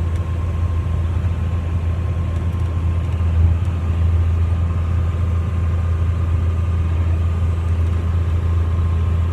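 John Deere 9220 four-wheel-drive tractor's diesel engine running at a steady, low drone while the grain cart unloads corn through its auger.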